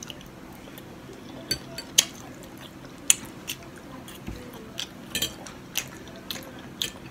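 Eating at a plate: a dozen or so irregular sharp clicks and taps of cutlery against the dish, with bites and chewing in between.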